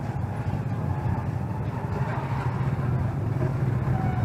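Steady low rumble of a motor vehicle engine running nearby in the street.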